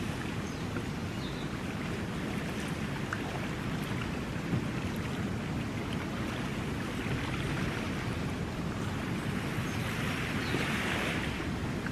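Small waves lapping and washing on a sandy shore, with a couple of slightly louder washes in the second half, over a low rumble of wind on the microphone.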